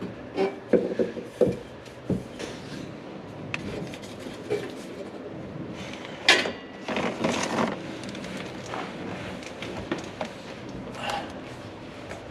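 Clunks, knocks and scraping of a steel exhaust muffler and pipe being worked and twisted into place under a car while the axle-back is fitted onto the exhaust pipe. A cluster of knocks comes in the first second or so, and a sharp loud clank about halfway through is followed by scraping.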